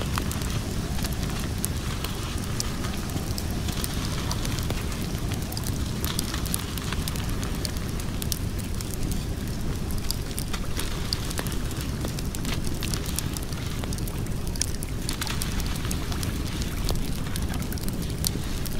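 Wood fire crackling, with frequent sharp pops and snaps over a steady low rumble.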